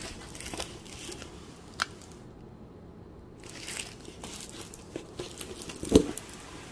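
Clear plastic protective film on a rolled diamond painting canvas crinkling as the canvas is handled, in two stretches with a pause between, and a sharp knock about six seconds in.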